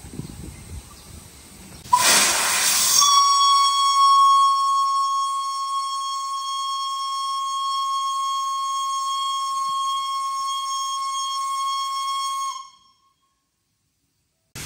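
Steam whistle of steam locomotive B 5112 blowing one long, steady high note for about ten seconds. It opens with a short rush of steam and cuts off abruptly.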